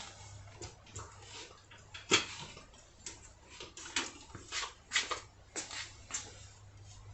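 Irregular clicks and knocks of metal parts being handled while working the motorcycle's rear wheel free, the loudest about two seconds in, over a low steady hum.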